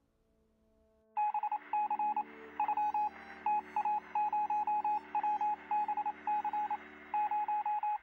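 Morse code sounded as a beeping tone of one steady pitch, keyed in short dots and longer dashes, starting about a second in. A faint steady low hum runs underneath.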